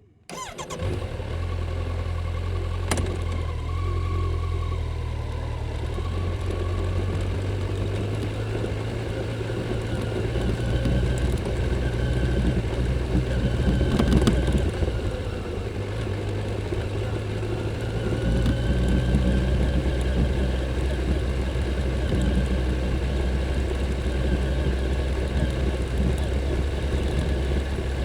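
Stock Kawasaki Z900's inline-four engine running through its factory exhaust, cutting in suddenly at the start and then running steadily, with a sharp click about three seconds in and the engine getting louder for a while near the middle.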